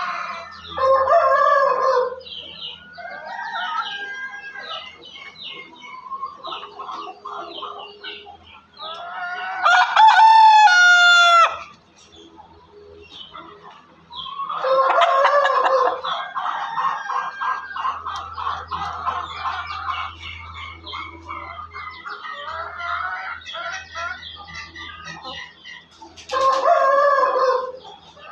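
A pen of Ayam Cemani chickens clucking and chattering. A rooster crows loudly about ten seconds in, and there are other long calls near the start, around fifteen seconds and near the end.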